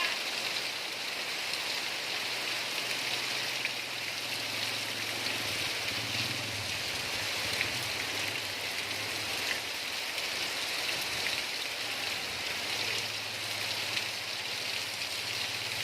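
Heavy rain pouring down in a strong windstorm: a steady hiss of rain with scattered drop ticks, and a low rumble that comes and goes underneath.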